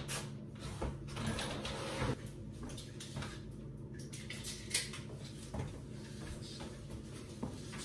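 Faint handling noise: a few light knocks and clicks over a steady low room hum.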